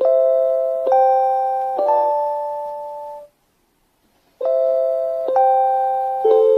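JR Hokkaido station chime for blind passengers: a chain of bell-like electronic tones, each struck and fading, about a second apart. The tones stop for about a second in the middle, then start again.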